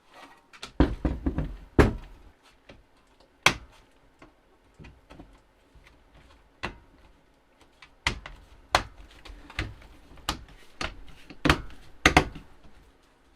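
Rubber trim strip being pressed and knocked back into place on a chrome car bumper: irregular knocks and clicks. There is a cluster about a second in, a sharp one a little later, and a busier run of knocks near the end.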